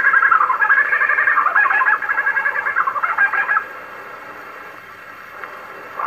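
Superb lyrebird singing a rapid, dense run of notes that stops about three and a half seconds in. It is played back from an old shellac 78 record on a wind-up Victrola gramophone, with steady record-surface hiss under it.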